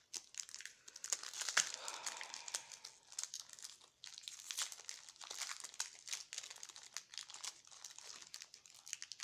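Foil Pokémon booster pack wrapper crinkling and crackling as it is handled, an irregular run of crackles with one sharp crack about a second and a half in.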